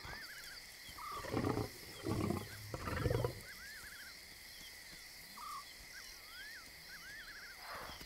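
Lion roaring: three deep calls in quick succession, starting about a second in.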